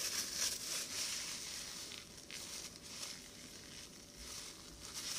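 A paper napkin crinkling and rustling as it is unfolded and crumpled in the hands, loudest in the first two seconds and fading after.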